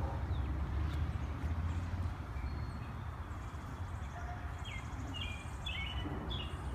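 Steady low wind rumble on the microphone, with a bird chirping in short, quick notes from about halfway in, more often near the end.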